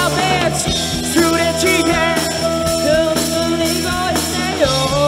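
Live rock band playing a song, with electric guitars, bass and drums, and held melodic notes over a steady bass line.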